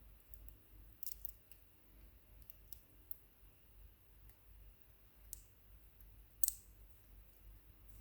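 Small sharp clicks of a lock and metal tools being handled while the lock is taken apart: scattered single clicks, a quick cluster about a second in and the loudest one about six and a half seconds in.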